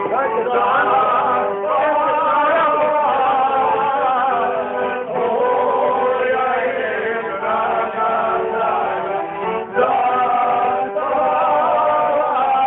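Male voices singing a song in long, drawn-out phrases, with short breaks between them every couple of seconds.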